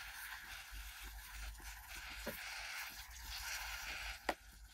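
Slime being squeezed out of a balloon's neck onto foam-bead bricks: a faint, steady wet hiss with scattered small pops and crackles.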